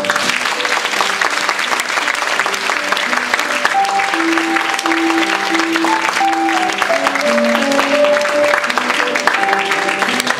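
Audience applauding, with instrumental music of slow, held notes playing underneath.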